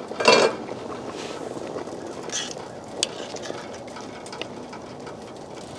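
Soup simmering on low heat in a pot over a wood fire, a steady soft bubbling hiss, with a brief louder burst about a third of a second in and a few light clicks and knocks.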